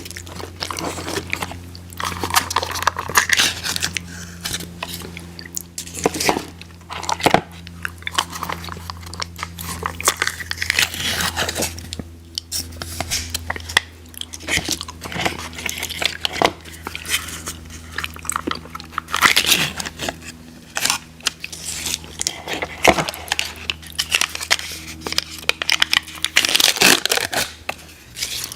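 Close-up eating sounds: crunchy fried food being bitten and chewed, with irregular crisp crunches and wet chewing over a steady low hum.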